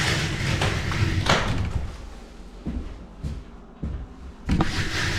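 A trowel scraping wet popcorn ceiling texture, a steady scratchy hiss that drops away about two seconds in, followed by several separate knocks and thuds.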